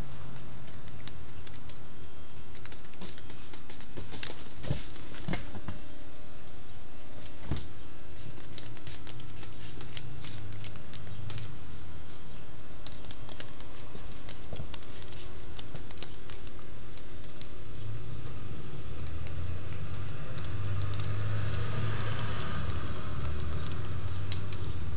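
Barber's scissors snipping hair over a comb, in irregular runs of small quick clicks.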